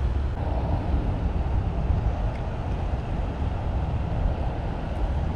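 Wind buffeting the microphone: a steady, deep rumble with no distinct events.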